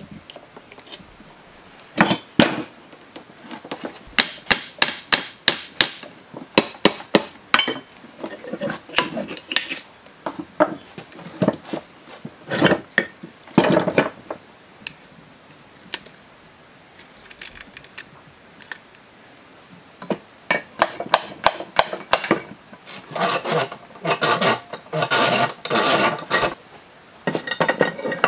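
Metal tools knocking and clanking on the rusty steel parts of an old water pump during disassembly: bursts of sharp, ringing metallic strikes separated by quieter stretches.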